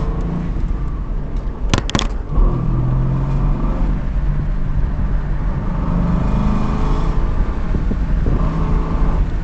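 2005 Ford Mustang GT's V8 engine under acceleration, its pitch climbing and dropping several times with a heavy low rumble, and a couple of sharp clicks about two seconds in. The owner is listening here for an intermittent noise at higher revs after the car has sat for a while, which he thinks comes from the drivetrain.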